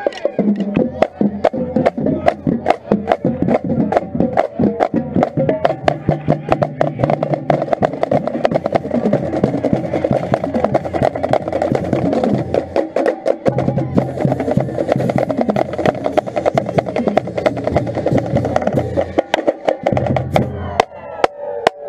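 Marching snare drum played close up with sticks in rapid, dense strokes, with the drumline's bass drums and the band's sustained pitched parts playing along.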